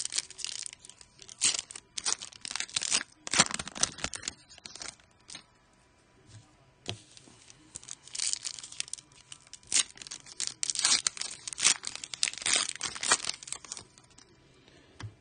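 Foil trading-card packs (Panini Prizm) being torn open and crinkled by hand, in irregular bursts of sharp rustling with a quieter pause about midway.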